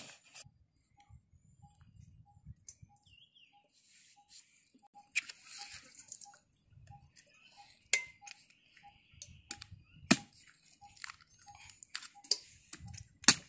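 Hands working a cut-open palmyra palm fruit (ice apple), giving scattered crunches and sharp cracks from the fibrous husk, four of them louder. A faint pip repeats evenly in the background, about two or three times a second.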